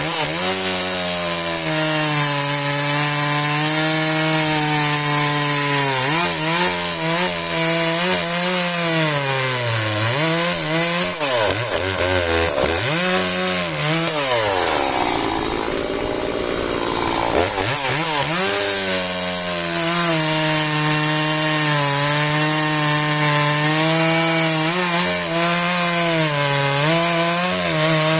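Husqvarna 345 chainsaw, a 45 cc two-stroke, revving up and running at full throttle as it cuts through a log round, its pitch sagging and recovering as the chain bites into the wood. About halfway through the engine drops back briefly, then revs up again and carries on cutting, falling away near the end.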